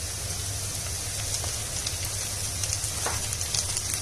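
Chopped onions and chillies sizzling in hot oil in a pan, a steady hiss with scattered crackles, over a steady low hum.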